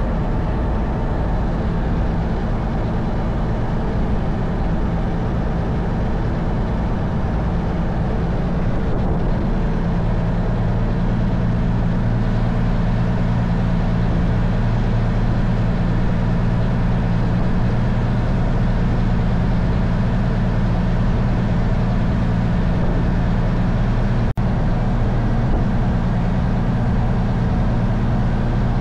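Faluwa boat's inboard diesel engine running steadily underway, a low drone that grows stronger about ten seconds in, over a steady rush of water and wind.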